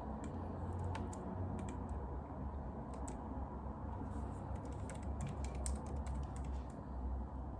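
Typing on a computer keyboard: scattered key clicks, then a quick run of keystrokes near the end, over a steady low room hum.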